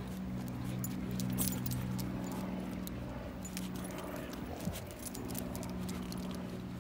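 Light metallic jingling and clicking from a walking German Shepherd's collar tags and leash clip, over a steady low hum.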